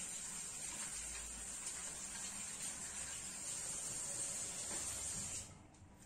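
Kitchen tap running in a steady rush while hands are washed under it; the water is shut off suddenly about five seconds in.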